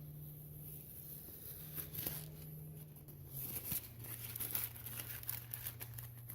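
Tape being peeled off a freshly painted safe door and crumpled: a run of irregular ripping and crinkling strokes, thickest in the second half, over a steady low hum.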